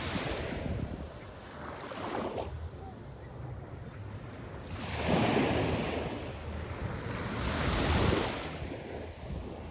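Surf washing onto a beach, the wave noise rising and falling in swells that are loudest about five and eight seconds in, with wind on the microphone.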